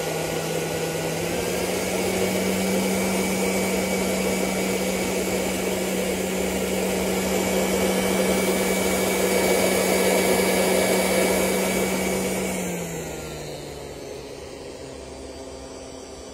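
Commercial oxalic acid vaporizer running while it fogs vapour into a beehive entrance against varroa mites: a steady hiss over a steady motor hum. The hum rises a little about a second in, and about thirteen seconds in the machine winds down, its hum falling in pitch as the sound fades.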